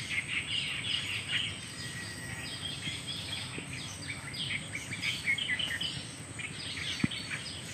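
Outdoor chorus of small birds chirping quickly and continuously, over a steady high-pitched whine, with one short click near the end.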